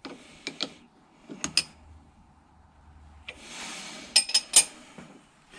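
Steel spanner clinking and knocking against the steel quick-change tool post and its nut, a few sharp metallic clicks between stretches of scraping and handling noise.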